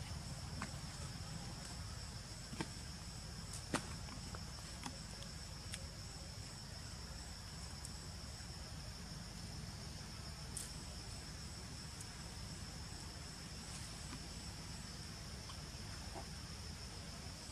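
Insects chirring steadily at a high pitch over a low rumble, with a few sharp clicks, the loudest about four seconds in.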